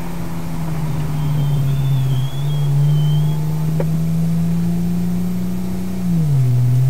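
Car engine and road noise recorded in the cabin by a dash cam: a steady hum whose pitch rises slowly for a few seconds, then drops about six seconds in.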